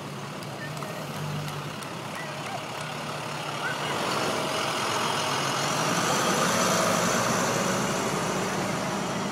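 Large vehicles driving slowly past: a coach bus pulling away, then a box truck passing close, its engine and tyre noise swelling to its loudest near the end.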